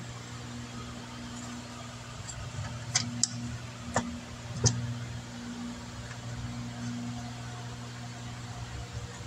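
Hands working a rubber gasket into a plastic Hemi valve cover: four short sharp clicks and taps of the cover and gasket a few seconds in, the last the loudest, over a steady low hum.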